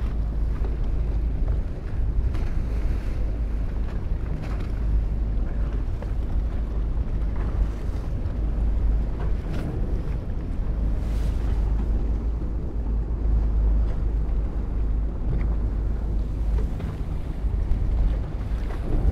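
Steady wind rumbling on the microphone aboard a fishing boat at sea, over the wash of the water.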